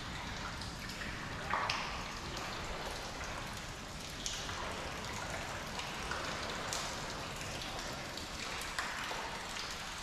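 Seashore ambience at low tide: a steady wash of noise with a low rumble, broken by a few scattered short, splashy ticks.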